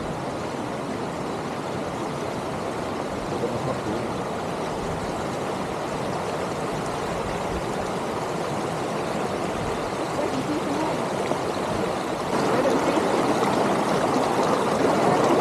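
River water flowing steadily over stones, growing louder about twelve seconds in.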